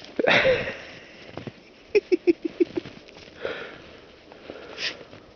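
Dog sniffing and snuffling close by: a breathy snort near the start, a quick run of about six short sniffs about two seconds in, and two more breathy sniffs later.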